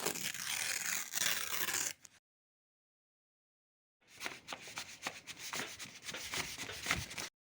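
Close-up rubbing and scraping of decoupage materials. A dense scrape lasts about two seconds, then a sudden cut to silence, then a run of short scrapes and clicks that stops abruptly.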